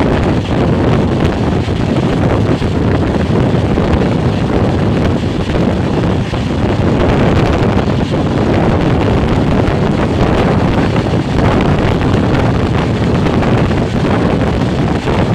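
Wind buffeting the microphone at the open window of a fast-moving passenger train, mixed with the steady rumble of the coaches running on the rails.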